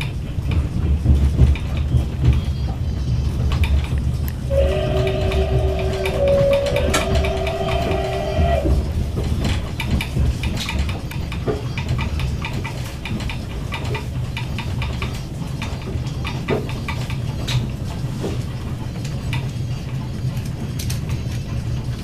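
Passenger carriage rolling along the track, heard from inside: a steady rumble with the clicking of wheels over rail joints. About four seconds in, the Su-class steam locomotive at the head of the train sounds its whistle for about four seconds, a two-note chord that dips briefly in pitch midway.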